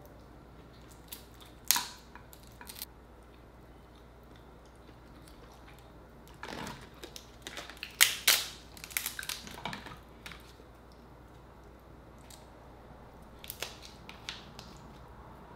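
Dungeness crab shell cracked and pulled apart by hand: a few sharp cracks at first, a dense run of loud cracks and crunches about six to ten seconds in, then a couple more near the end.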